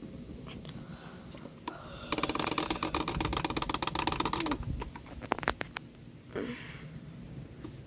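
Engine oil being poured from a jug into the engine's filler: a stretch of rapid, crackly rattling for about two and a half seconds, followed by a few sharp clicks.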